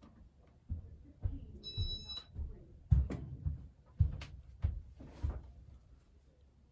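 A series of about ten irregular knocks and thumps, with a short high electronic beep about two seconds in.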